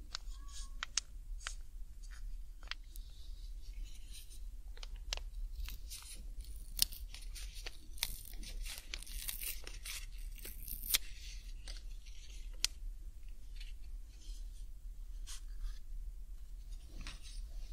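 Alcohol prep pad sachet being handled and torn open: crinkling packet and a run of small sharp clicks and rustles, with a longer, denser tearing rustle from about eight to eleven seconds in.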